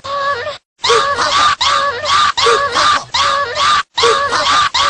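A short shrill cry stutter-looped by editing: the same fragment repeats over and over, about two and a half times a second, with a few abrupt cuts to silence.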